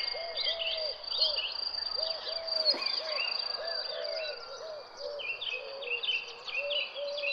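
Nature ambience: many birds calling and chirping over a steady high insect trill, with short low calls repeating in quick succession.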